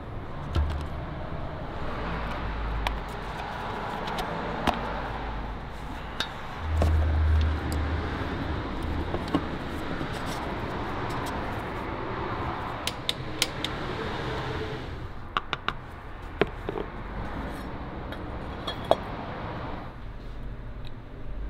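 Hands fitting a cartridge oil filter into a car engine's filter housing: rubbing and scattered clicks and taps over steady background noise. There are low thumps just after the start and a louder one about seven seconds in.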